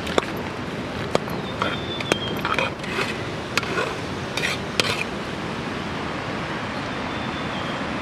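Metal spoon clinking and scraping against a steel plate while stirring a thick mixture, a quick run of knocks and scrapes that stops about five seconds in, over a steady hiss.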